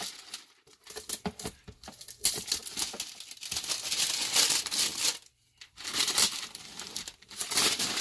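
Packaging being torn open and handled by hand: irregular crinkling and tearing, with a short pause about five seconds in.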